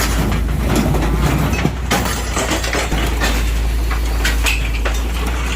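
Excavator's diesel engine running steadily while its hydraulic cutting shear crushes and tears the sheet metal of a truck cab, giving repeated sharp metal cracks and clanks.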